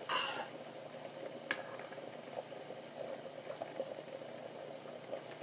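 Thick butter chicken sauce simmering in a pan on low heat, bubbling with small irregular pops. A single light click about a second and a half in.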